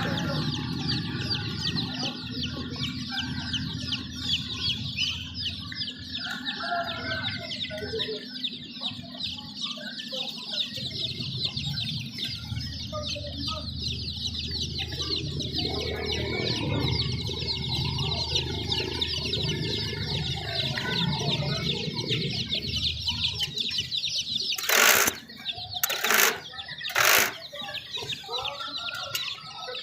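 A crowd of young chicks peeping continuously in a dense, high chatter, with some lower clucking mixed in. About 25 seconds in come three loud, short bursts of noise about a second apart.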